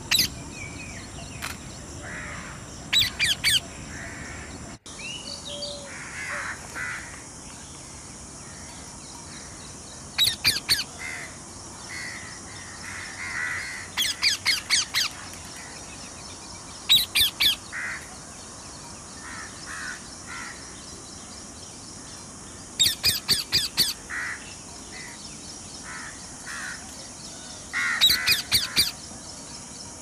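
Birds calling: about six bursts of short, harsh calls, each a quick run of several notes, stand out over softer bird calls. A steady high hiss runs underneath.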